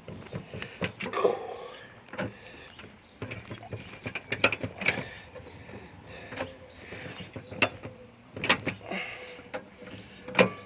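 Ratchet straps being cranked tight under heavy load: irregular runs of sharp ratchet clicks and clunks as the handle is worked back and forth.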